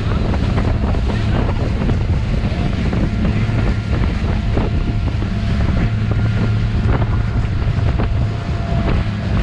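Motorboat engine running steadily under way, a constant low drone, with wind buffeting the microphone and rushing water noise over it.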